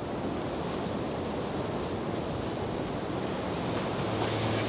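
Ocean surf and wind as an even, steady rush of noise. A low steady hum comes in near the end.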